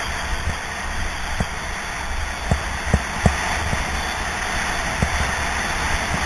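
Skis running fast over groomed snow at high speed, a steady rush of wind over the body-worn camera's microphone with a low rumble, broken by scattered sharp knocks from the bumps of the run.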